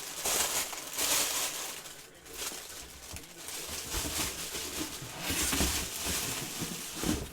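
Rustling and crinkling of packaging being handled, in irregular bursts with a few soft knocks.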